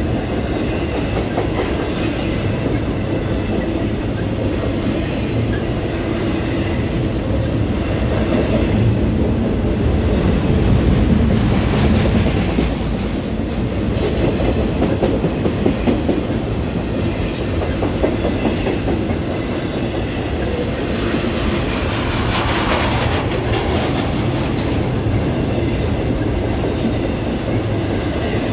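A train rolling steadily past at close range, its cars' wheels clicking over the rail joints with a deep rumble.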